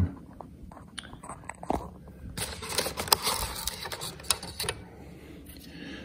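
Clicks, taps and scraping of a foam RC jet's hatch being popped open and lifted off by hand, with a thicker run of handling noise in the middle.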